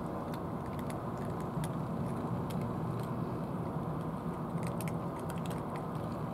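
Cats crunching dry kibble: small sharp clicks in scattered clusters, over a steady low background rumble.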